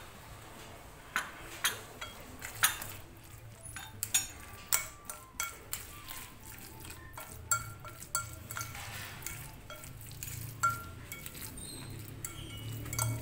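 A metal utensil stirring a thick tofu, egg and flour mixture in a glass bowl, clinking and scraping against the glass in irregular clicks.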